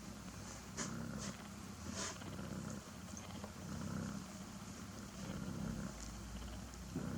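Cat purring, a low rumble that swells and eases in slow pulses, typical of a mother cat purring while her kittens nurse. Short sharp clicks come through now and then.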